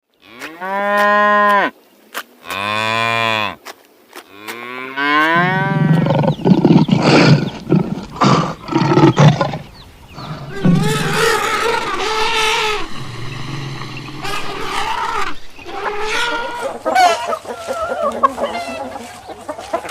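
Cattle mooing: three separate drawn-out moos in the first five seconds, then a busier stretch of many overlapping animal calls.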